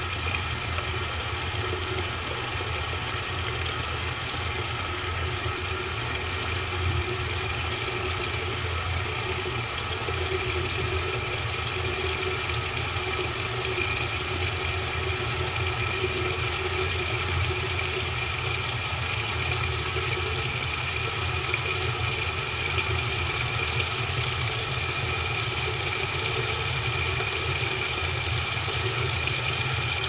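Top-loading washing machine heard from inside its tub: a steady mechanical hum with a few constant tones, growing slightly louder, while the drum and agitator stay still.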